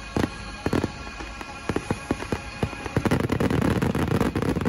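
Fireworks bursting: separate sharp bangs at first, then a dense, rapid barrage of bangs from about three seconds in that stops abruptly at the very end.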